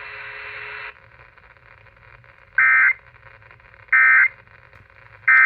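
Emergency Alert System end-of-message code: three short bursts of two-tone digital data warble, about a second and a half apart, marking the end of the broadcast warning. A steady radio hiss before them cuts off about a second in.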